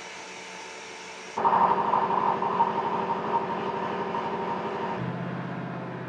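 Steady background noise, then about a second and a half in the diesel engine of a truck-mounted mobile crane is heard running close by, with a steady high whine over its beat. Near the end the sound drops to a lower, steadier hum.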